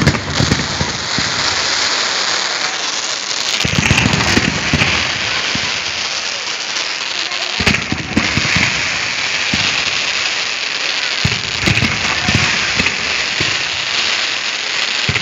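Fireworks fizzing and crackling without a break, a dense rain-like hiss of burning sparks. Heavier waves of rapid crackles and pops come about four, eight and eleven seconds in.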